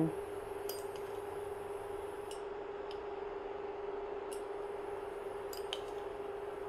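Induction cooktop humming steadily with a faint whir under a pan of vinegar and water as it heats, with a few faint clicks of a metal spoon against the sugar jar and the pan.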